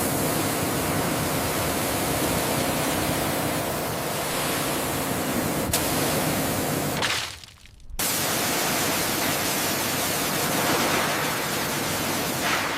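A loud, steady hiss of noise that briefly drops away about seven seconds in, then carries on as before.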